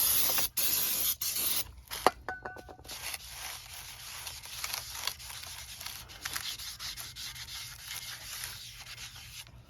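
Aerosol brake cleaner sprayed onto a new brake rotor in a few short hissing bursts to strip its factory coating, then the rotor is rubbed and wiped clean with a steady scrubbing sound.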